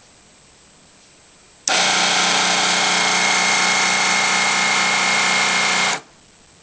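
Swivel Sweeper G2 cordless sweeper's brush motor, which drives its four rotating brushes, switching on about a second and a half in, running steadily with a high whine for about four seconds, then switching off abruptly.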